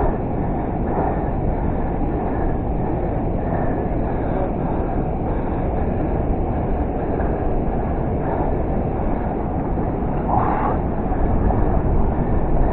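Steady rumbling wind noise buffeting an action-camera microphone, heaviest in the low end.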